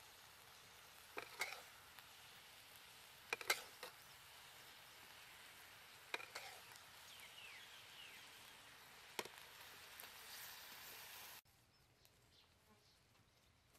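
Pork leg sizzling in a hot wok, a faint steady hiss, with several sharp clicks as a metal spatula knocks against the wok. About eleven seconds in, the sizzle cuts off abruptly.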